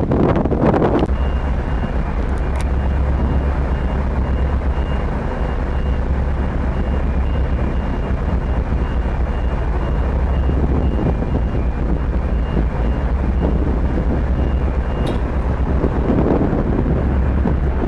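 Wind buffeting the microphone, then from about a second in a steady low rumble of ship's engines with a high electronic beep repeating about twice a second, typical of a vehicle's reversing alarm. The beeping stops a couple of seconds before the end, and the wind comes back.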